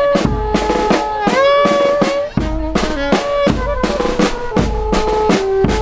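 A small street band playing: a saxophone holds a melody of sustained notes over steady bass drum and snare drum beats.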